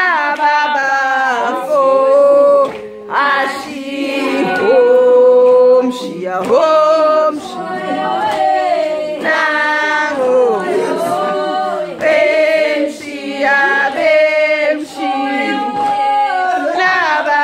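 A group of women's and men's voices singing together in harmony, without instruments, in phrases of held notes with short breaks between them.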